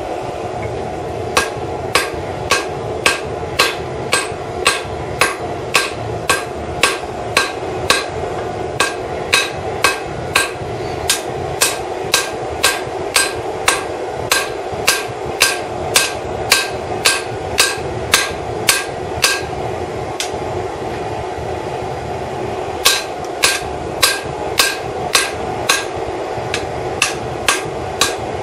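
Hand hammer striking hot leaf-spring steel on an anvil, about two ringing blows a second, with a pause of a few seconds about two-thirds of the way through. Under the blows, the propane forge's burner gives a steady roar.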